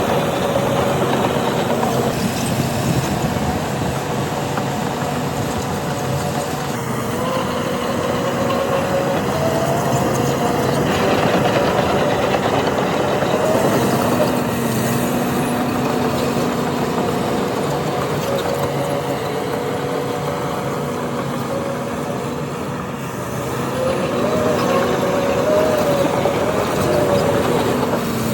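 Heavy diesel earthmoving machinery running continuously, the engine note rising and falling several times as the machines work under load.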